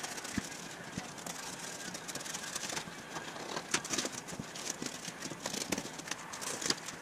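Utility knife cutting through cardboard: an irregular scratchy scraping with many small clicks, along with the rustle and scrape of the cardboard sheets being lifted and shifted on a steel workbench.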